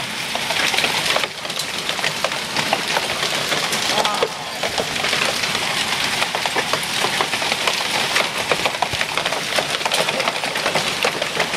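Torrential rain pouring down in a dense, steady hiss, with many sharp spatters of drops striking close surfaces.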